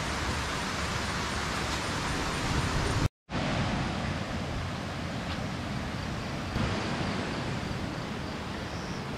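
Steady rushing noise with no distinct events. It cuts out completely for a moment about three seconds in, then carries on slightly quieter.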